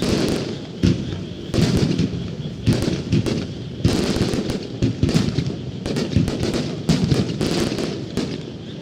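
Starmine fireworks barrage: aerial shells launching and bursting in rapid succession, with a sharp boom about every second over a continuous rumble and crackle.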